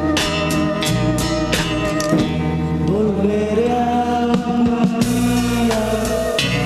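Pop-rock band music: an instrumental passage with a wavering lead melody over a steady strummed beat, with no sung words.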